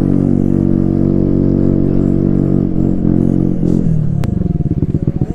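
Single-cylinder engine of a TVS Ntorq 125 scooter running through an aftermarket Akrapovic exhaust with the dB killer removed, loud and raspy. The revs fall off about three seconds in and it settles to a lumpy idle whose separate firing beats can be heard, with a single click just after the revs drop.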